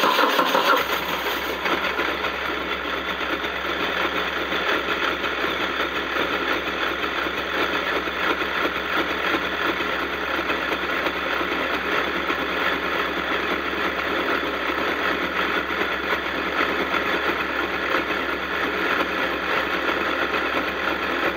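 Moto Guzzi Stelvio's transverse V-twin idling steadily just after a cold start in near-freezing weather. It runs a little louder for the first second or so after catching, then settles to an even idle. The alternator is charging the battery.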